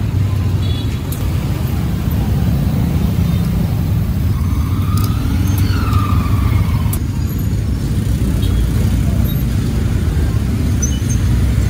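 Busy street traffic: a steady rumble of motorbike and car engines passing close by. A few light clicks and a short rising-and-falling tone come about five seconds in.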